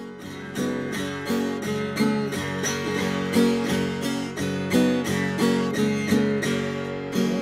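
Acoustic guitar strummed in a steady rhythm, about three strokes a second, with the chords changing; it swells in over the first second.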